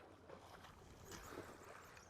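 Faint, irregular water lapping and slapping against a kayak hull.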